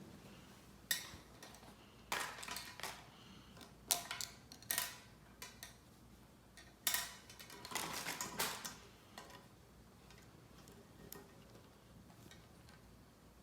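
Small hard objects being handled and set down on a table: irregular clicks, knocks and short clattering rattles, busiest in the first two-thirds and then near quiet.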